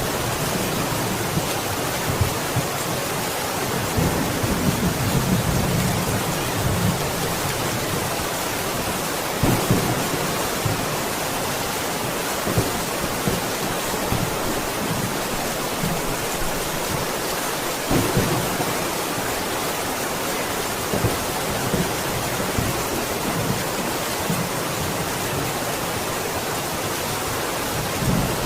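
Steady rain falling hard, with low rumbles of thunder rising and fading several times, the longest a few seconds in.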